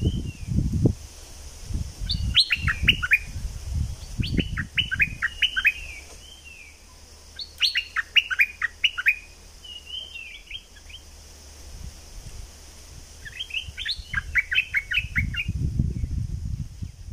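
Stripe-throated bulbul singing: four bursts of quick, bubbly whistled notes, each lasting a second or two. A low rumble comes at the start and again near the end.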